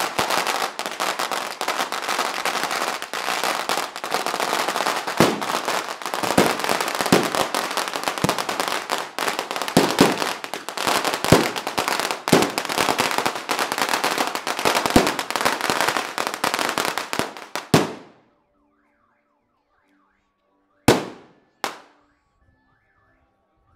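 A roll of firecrackers (an ametralladora string) going off in rapid, continuous crackling, with louder bangs mixed in, until it cuts off after about 18 seconds. Two single sharp bangs follow about three seconds later, a second apart.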